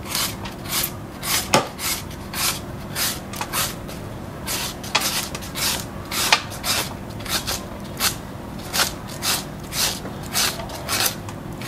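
Peeled mango being rasped across a handheld julienne shredder in repeated strokes, about two a second, each a short scraping rasp as the blades cut the flesh into thin strands.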